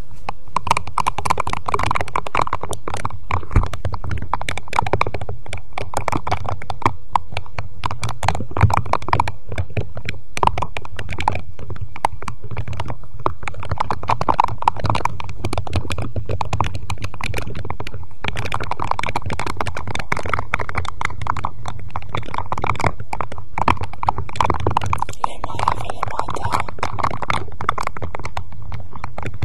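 Close-miked ASMR 'face massage' sounds: objects rubbed, scratched and tapped directly on the microphone, giving a dense, continuous crackle of clicks and rubbing.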